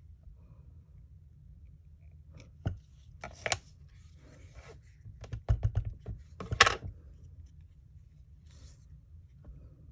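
Craft-table handling sounds: a couple of sharp knocks as a clear acrylic stamp block is set down on the work surface, a quick run of small clicks, then a brief scratchy rustle of kraft cardstock being handled, the loudest sound, about two-thirds of the way through.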